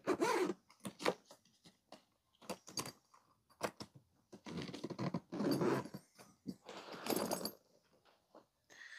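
Zippers and the heavy nylon fabric of a tool backpack, rustling and scraping as its compartments are unzipped and handled, in several short bursts with a longer one about halfway.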